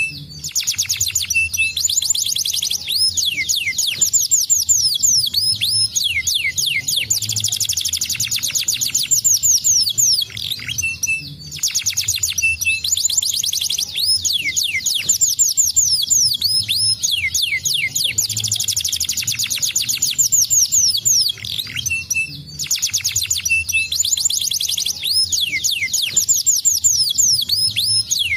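Domestic canary singing a long, fast song of rolling trills and rapidly repeated chirps, broken by a few brief pauses. It is the kind of song played to prompt other canaries to sing.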